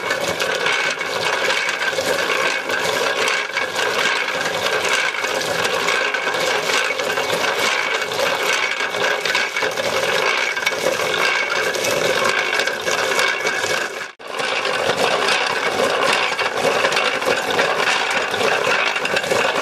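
Hand-cranked coffee pulper turning, fresh coffee cherries rattling through its drum in a dense, steady clatter as the skins are stripped from the beans. The sound breaks off for an instant about fourteen seconds in.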